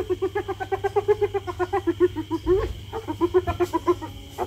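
Brown hyenas yelping in a rapid run of short, pitched calls, several a second, during a neck-biting tussle, with a short break about three seconds in.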